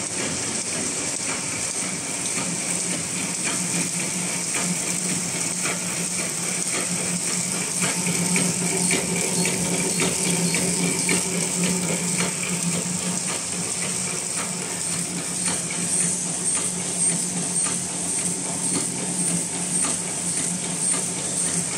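Automatic napkin-and-cutlery bag-packing machine running: a steady mechanical hum and high hiss with rapid, irregular clicking and clacking from its feed and cutting mechanisms.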